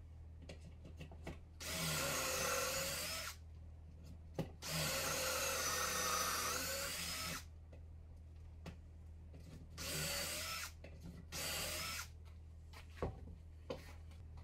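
DeWalt cordless drill boring into wood through a pocket-hole jig in four separate runs, two longer and two short. The motor's whine wavers in pitch as the bit loads up in the wood. Short clicks and knocks come between the runs as the drill and jig are handled.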